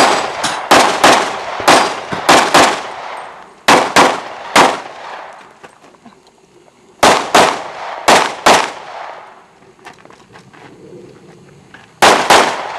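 Pistol shots fired in quick strings during a practical shooting course of fire: about seven shots in the first three seconds, three more around four seconds in, about five between seven and eight and a half seconds, and a new string starting near the end. Each shot has a short echoing tail.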